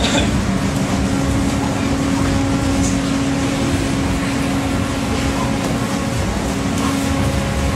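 A steady mechanical hum over an even rushing noise, unchanging in level.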